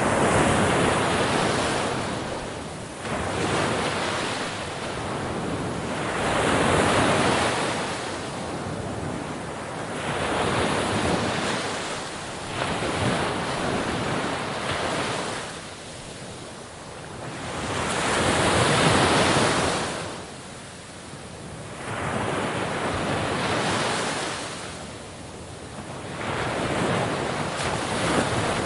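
Sea waves breaking on a shore one after another, each surge of surf swelling up and washing back every few seconds.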